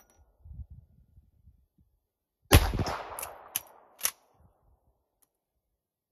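A single shot from a Winchester 1866 lever-action carbine about two and a half seconds in, ringing out and dying away. It is followed over the next second and a half by three sharp metallic clacks of the action being worked.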